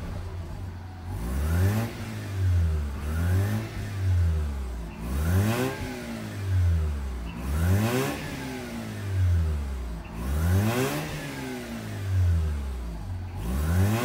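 Mazda RX-8's twin-rotor Renesis rotary engine revved in about a dozen short blips, each climbing to around 3,000 rpm and falling back toward idle. With a new crankshaft position sensor, plugs and coils fitted, it sounds fine at this moment.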